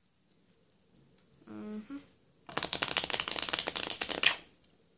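A deck of playing cards riffle shuffled in the hands: a fast run of fluttering card clicks as the corners are released and interleave, starting about halfway in, lasting about two seconds and ending with a sharper snap.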